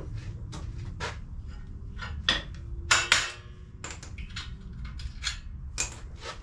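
Hammer blows knocking bolts out of a motorcycle frame to free it from the engine: a dozen or so irregular metallic knocks, the loudest pair about three seconds in.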